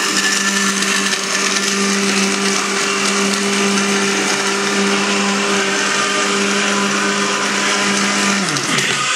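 Countertop blender motor running at a steady speed, blending ice with stout, Irish cream and whiskey. Near the end it is switched off and the motor winds down with a falling pitch.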